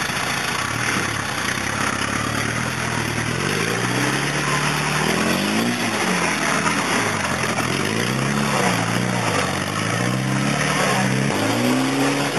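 Engine of a roll-caged off-road 4x4 pickup working under load in deep mud, revving up and dropping back about three times. A steady hiss from the wheels churning mud and water runs under it.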